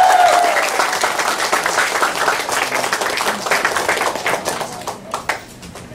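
Audience applauding after a song, with the singer's last held note ending under the clapping about half a second in. The applause thins out and fades near the end.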